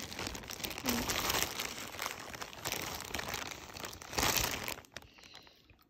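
Clear plastic bag of snack mix crinkling and rustling as a dog noses at it, loudest about four seconds in and dying away near the end.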